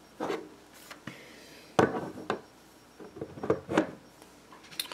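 Plastic CD jewel case being handled and turned around on a wire display stand: a series of sharp clicks and knocks of hard plastic, the loudest about two seconds in, with a cluster of lighter taps a little later.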